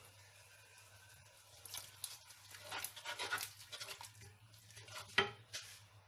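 A wooden spoon stirring and scraping thick, frying masala in a metal pot, keeping it from sticking to the bottom. The run of short, irregular scrapes and knocks starts about two seconds in, with the loudest knock near the end.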